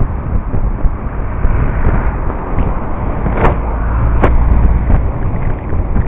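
Wind rush on a bike-mounted camera's microphone with road rumble, as a motorhome overtakes close alongside about halfway through, its engine and tyres rumbling louder for a second or so. Two sharp knocks come about three and a half and four seconds in.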